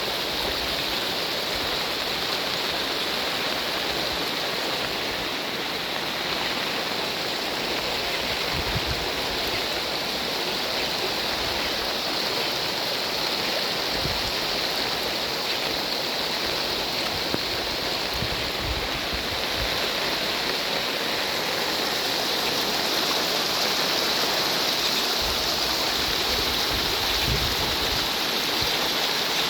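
Steady, continuous rush of fast-running water, as from a rain-swollen stream, a little louder over the last several seconds.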